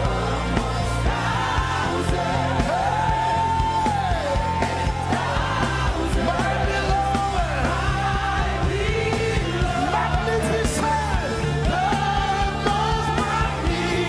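Live gospel worship music: a singer holds long, slightly wavering notes that bend down at their ends, over a band's steady sustained low chords.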